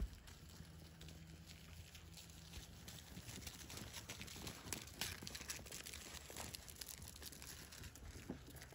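Faint rustling and scuffling of whippet puppies romping in grass, with scattered small clicks that get busier about three seconds in.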